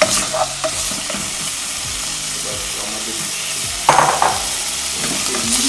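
Pieces of pufferfish and onion sizzling steadily in hot olive oil in a stainless steel pot, as they brown. A silicone spoon stirs and scrapes against the pot, with a louder scrape about four seconds in.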